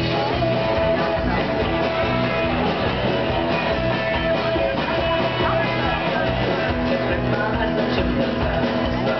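Punk rock band playing live: electric guitar and drums with a steady, driving beat.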